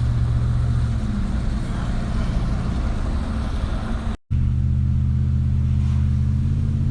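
Steady engine hum and road noise heard inside a car's cabin while driving on wet roads in the rain. About four seconds in, the sound cuts out for a moment, then the low hum returns steadier.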